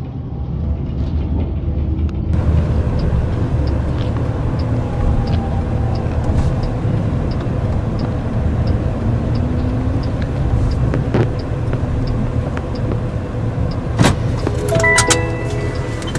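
Steady road and running noise heard from inside a moving bus, with a soft regular ticking about twice a second through most of it. Near the end comes a sharp knock, then a chime of several steady tones.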